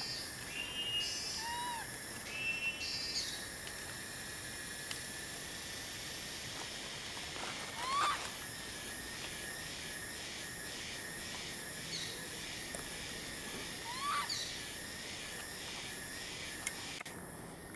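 Outdoor ambience with a steady high insect-like hiss. Short repeated bird-like calls sound in the first few seconds, and two sharp rising shrill calls come about 8 and 14 seconds in.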